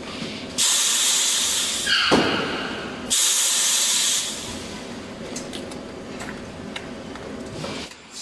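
Plastic surprise-egg sealing machine at work: loud hissing bursts of air about a second long, the first about half a second in with a falling whoosh at its end, a second about three seconds in, and a third starting near the end, with light clicks between.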